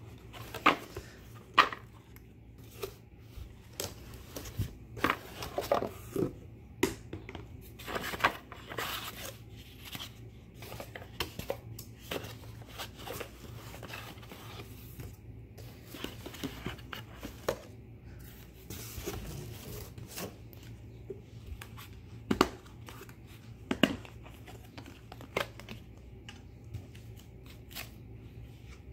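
Glass food-storage containers with plastic snap-lock lids being unpacked from a cardboard box: irregular knocks and clicks of lids and glass against cardboard and each other, with scraping and rustling of the packaging.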